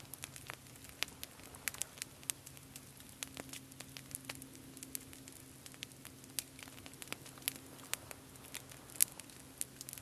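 Small wood campfire crackling quietly, with irregular sharp pops over a faint hiss.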